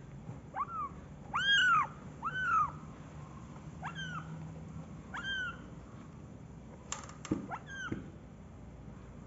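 Very young kittens mewing: about six short, high-pitched mews, each rising and then falling in pitch, the loudest in the first three seconds. A few light clicks about seven seconds in.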